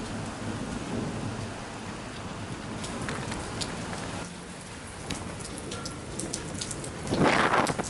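Light rain falling, with individual raindrops ticking close by, over a low rumble of distant thunder that fades out about four seconds in. A louder burst of noise comes near the end.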